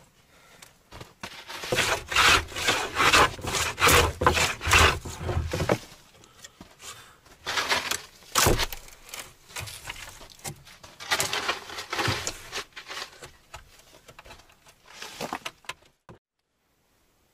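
Wooden hand plane shaving along a wooden plank in a series of rasping strokes, with a sharp knock about eight and a half seconds in. The sound cuts off suddenly near the end.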